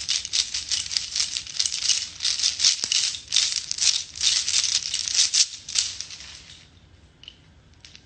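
Loose beads rattling in a rapid, uneven run of tiny clicks that stops near the end.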